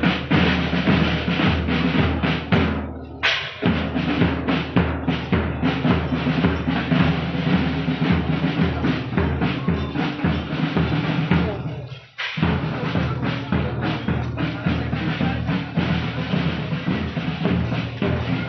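Marching drums, bass drum and snare, playing a steady beat over a sustained low musical drone, with a short break about three seconds in and another just after twelve seconds.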